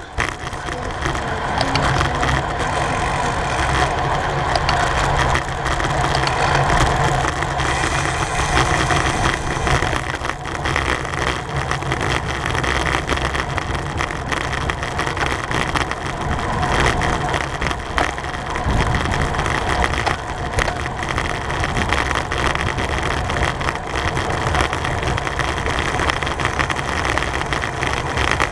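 Steady rush of wind buffeting the microphone, with road and tyre noise from a bicycle riding at race speed in a bunch.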